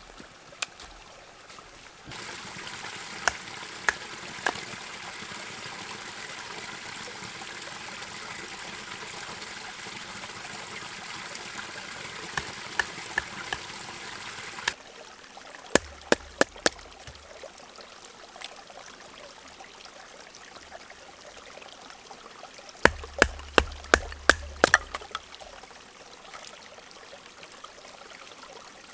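Creek water running with a steady rush that starts suddenly about two seconds in and stops just as suddenly about halfway through. Scattered sharp clicks sound over it, and later come two quick clusters of sharp cracks with a dull thud.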